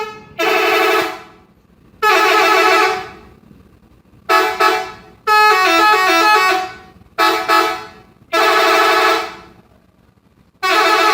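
Indonesian bus 'telolet' multi-tone air horn sounding seven loud blasts, each a chord of several trumpets. The longest, in the middle, steps through a run of notes like a short tune.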